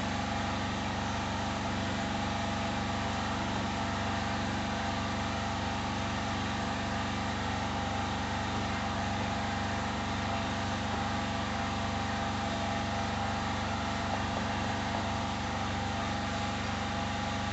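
Steady hum of a small electric motor with an even hiss over it.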